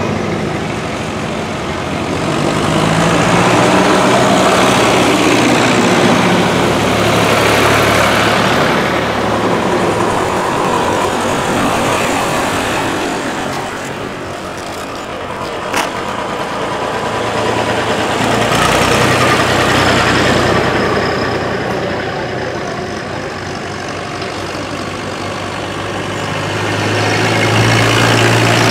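Tractor engines running as tractors drive past one after another, the sound swelling and fading several times and loudest near the end as a cab tractor goes by. A single sharp click about halfway through.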